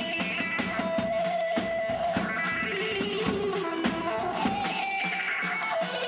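Amplified Turkish folk dance music: a plucked string instrument playing the melody over a steady drum beat.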